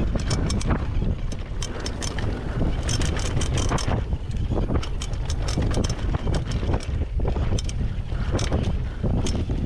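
Mountain bike descending a dirt trail at speed: wind buffeting the microphone, tyres rolling over dirt and rocks, and the bike rattling with frequent sharp clicks and knocks.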